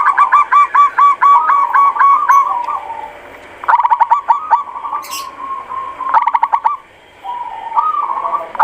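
Zebra dove (perkutut) calling close by: four runs of quick, repeated short notes, each run lasting about a second, with softer notes between them.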